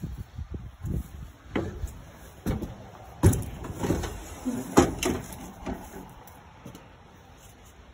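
Metal compartment lid on a fire truck's body being opened and handled: a series of clunks and rattles, the loudest about three and five seconds in.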